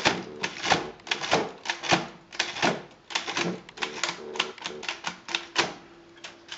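Triumph Standard 12 manual typewriter's mechanism clicking and clacking as its keys, spacebar and levers are worked by hand: an uneven run of sharp clacks, about three a second, some with a short metallic ring.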